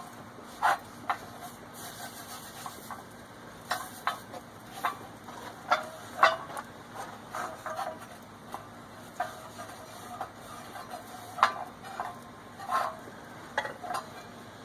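Irregular scraping and rubbing strokes on a hot sheet-steel piece, separated by short pauses, the loudest about six and eleven and a half seconds in. This is the hot steel being brushed down and wiped for a boiled-linseed-oil finish.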